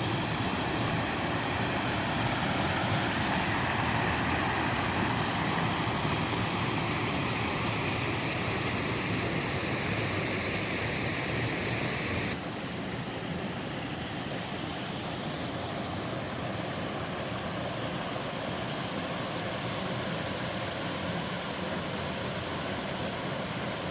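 Water of a two-tier waterfall and mountain stream rushing steadily. About twelve seconds in the sound changes abruptly to a slightly quieter, less hissy rush.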